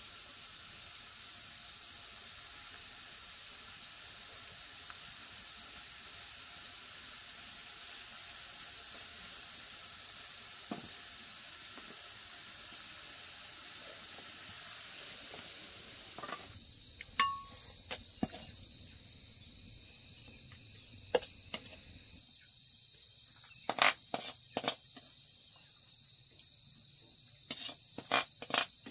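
Insects singing in a steady, high-pitched drone. A soft hiss lies under it for the first half, and from about halfway several sharp clicks and knocks break in.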